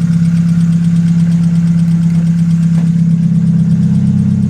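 Chevrolet Nexia 3 exhaust with a hand-repaired muffler, the engine idling steadily and loud.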